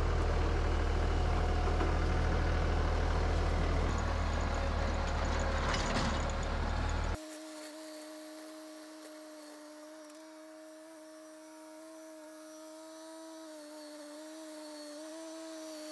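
Compact tractor running a rear rotary tiller through the food plot, heard close as a loud rumble. About seven seconds in the sound cuts abruptly to a quieter, steady hum of the tractor engine.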